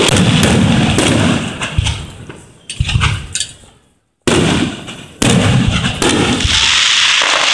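Aerial fireworks going off: a dense run of bangs and crackling that dies away toward the middle. After a brief gap of near silence just past halfway, the bangs come back loud and continuous.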